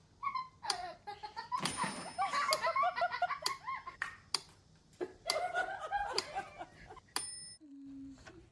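A person laughing in two bouts of quick, repeated laughs.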